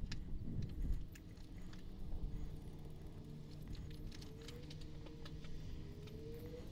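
Faint scattered clicks and light taps of hand work with a paint brush and paint tin on a classic Mini A-series engine's cylinder head, over a low steady hum.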